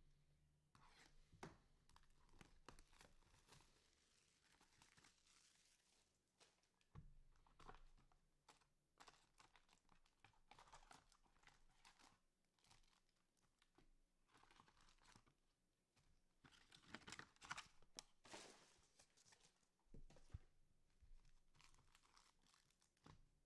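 Faint tearing and crinkling of trading-card pack wrappers being opened, in irregular bursts with light clicks.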